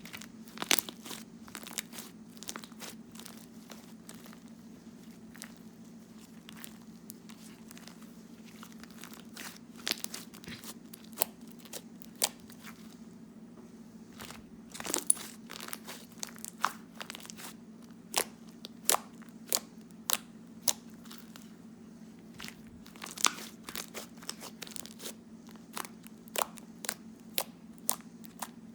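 Slime being squished and stretched by hand, making sharp, irregular clicks and pops, sometimes several in quick succession, over a steady low hum.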